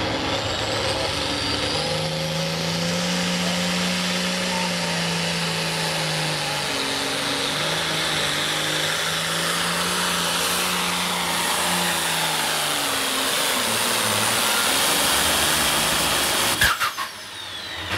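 Hot farm class pulling tractor's turbocharged diesel engine running flat out under load as it drags the weight sled down the track, with a high whine that climbs in pitch over the first few seconds. Near the end a sharp crack, after which the engine sound drops away.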